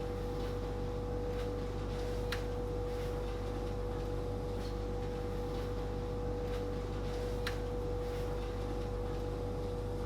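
Steady hum of factory machinery with a constant mid-pitched tone, broken by two faint clicks, one about two seconds in and one near the end.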